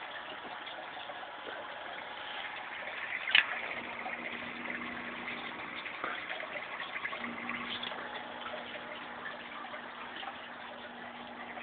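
Aquarium water bubbling and trickling steadily, with a low steady hum that comes in about four seconds in. A single sharp tap sounds a little over three seconds in.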